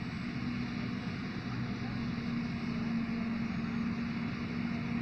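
New Holland FX58 self-propelled forage harvester chopping maize, with the tractor and trailer running beside it: a steady machine drone with a constant hum in it.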